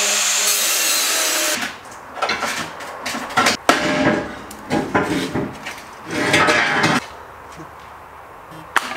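Angle grinder cutting off a metal rock slider under a car: a steady run for about a second and a half, then stop-start bursts of grinding with a few sharp knocks, easing off for the last two seconds.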